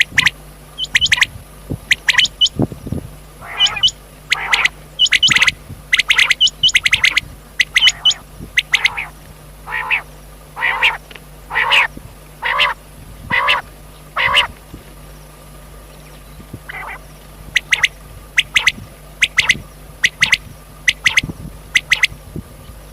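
Rain quail calling: short, sharp notes, often in quick pairs, repeated in series, with a brief lull a little after the middle.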